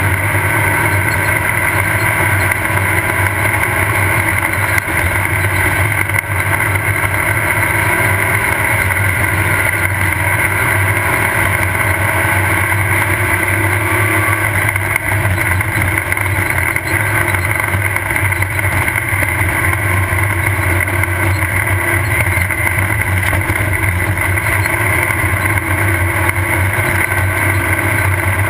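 Off-road race car's engine running steadily at speed, a constant drone with no revving up or down, heard from the car.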